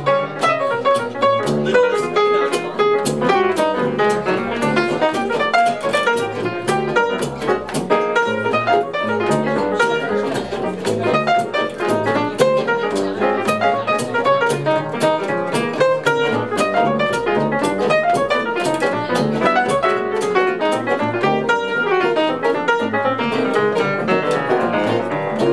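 Jazz trio playing: upright piano, plucked double bass and guitar, with a dense stream of notes.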